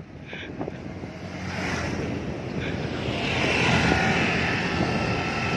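Motor scooter engine running close by, growing louder from about a second and a half in.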